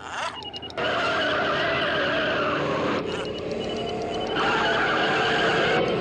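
A DeLorean car's engine revving and its tyres squealing as it accelerates hard, starting about a second in and going in surges, louder again near the end.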